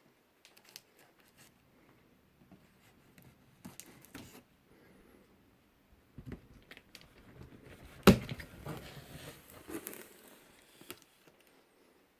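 Packaging being handled during an unboxing: scattered clicks and rustling, crinkling and tearing, with one sharp knock about eight seconds in that is the loudest sound.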